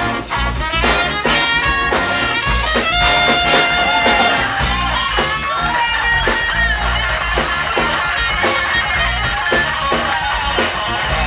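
Live big band music: an electric guitar solo with bent notes over bass and drums, with the band hitting short repeated chords in the first few seconds.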